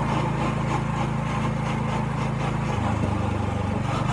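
Go-kart's small engine running steadily as the kart drives along. About three seconds in, its note drops for about a second, then picks back up.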